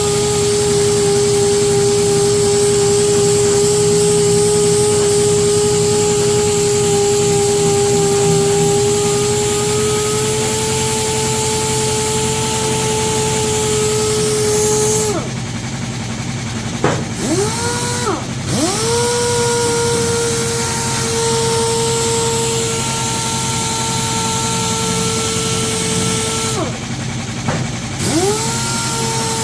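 Dual-action sander with 80-grit paper running as it sands off old paint and rust, a steady whine. About halfway through and again near the end it stops, spinning down and quickly back up to speed. A steady low hum runs underneath.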